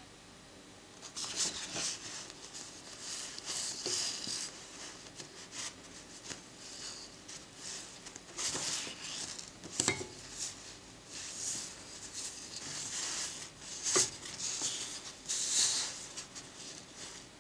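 Paper photo prints rustling and sliding as they are handled, in short repeated bursts, with sharp clicks about ten and fourteen seconds in.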